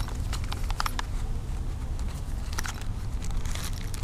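A phone holder's cardboard box and its contents being handled and opened by hand: scattered clicks and rustles of the box flap and plastic packaging, over a steady low rumble.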